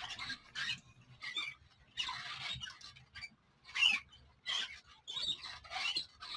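Short, irregular squeaks and squelches of wet hands rubbing the rim of a soft clay pot as it is shaped on a potter's wheel.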